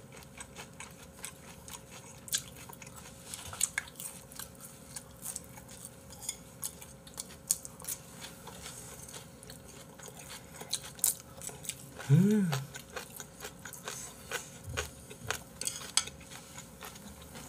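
Two people eating with chopsticks: chewing, with scattered light clicks of chopsticks against plates and bowls. About twelve seconds in there is one short hummed voice sound.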